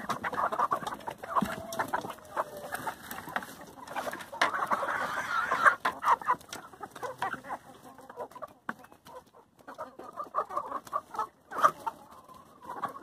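A flock of chickens clucking as they feed, with many short overlapping calls, busiest in the first six seconds and thinning out after that.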